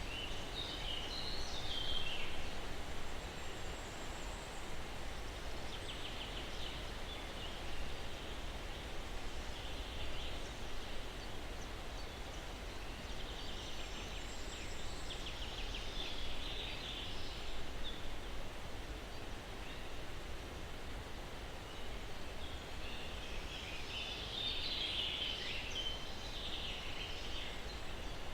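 Steady breeze through pine trees, with bouts of distant birds chirping: near the start, twice in the middle and again near the end.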